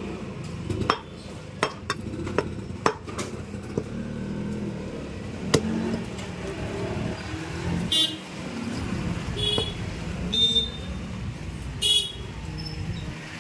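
Road traffic running steadily with vehicle horns tooting four short times in the second half. In the first half comes a string of sharp knocks, a butcher's cleaver chopping meat.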